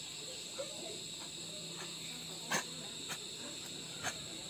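Steady high chirring of night insects such as crickets, with a few sharp clicks, the loudest about two and a half seconds in and again near the end.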